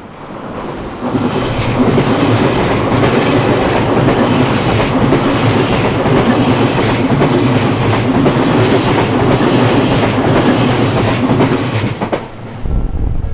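An Odakyu Odawara Line electric train passing close by over a level crossing, its wheels clicking over the rail joints. The sound builds about a second in, stays loud, then drops away sharply near the end.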